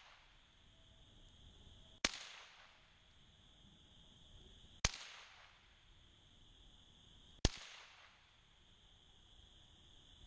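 .22 rifle, a Sears Ted Williams Model 3T, firing CCI Stinger hyper-velocity .22 rounds: three sharp cracks about two and a half seconds apart, each trailing off in a short echo.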